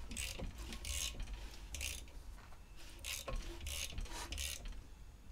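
Short bursts of air hissing past a palm held over a cylinder bore of a GM Ecotec short block, with mechanical rubbing as the crank turns the pistons. This is a hand vacuum check, and air keeps leaking past the hand, so no vacuum builds.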